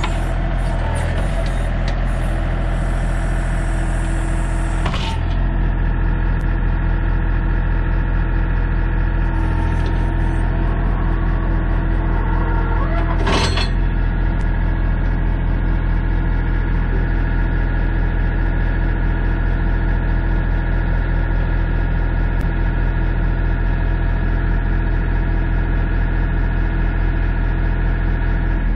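John Deere 3025 compact tractor's diesel engine running steadily under the backhoe. A higher hiss rides on it for the first five seconds and stops suddenly, and a single sharp knock sounds about thirteen seconds in.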